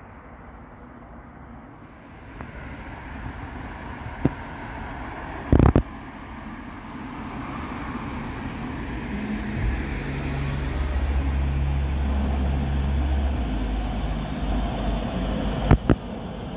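Cologne Stadtbahn line 4 train approaching the platform, its rumble growing steadily louder, with a low electric hum in the middle. A few sharp clacks come about 4 and 6 seconds in and again near the end.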